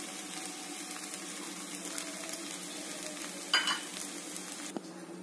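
Chilli bread sizzling in a frying pan, a steady hiss with one sharp clack about three and a half seconds in. The sizzle cuts off suddenly near the end.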